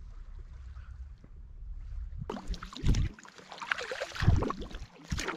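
Wind rumbling on the microphone, then from about two seconds in a sea kayak paddle dipping and splashing through the water stroke by stroke, with two heavy low thumps of wind buffeting the microphone.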